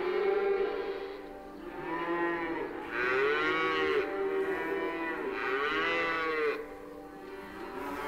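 Cows mooing: several long moos, each rising and then falling in pitch.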